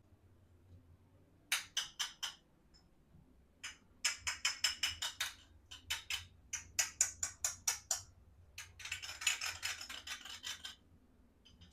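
Small plastic toy-kitchen pieces being handled, making crisp light clicks and taps in quick runs, with a fast dense flurry of clicking near the end.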